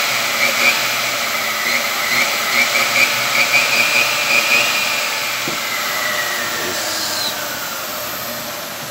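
Aluminum cutting saw's electric motor running with a steady high whine, then winding down from about five seconds in, the whine falling in pitch and fading as the blade coasts. The saw is running again after repair, its broken switch replaced with an ordinary one.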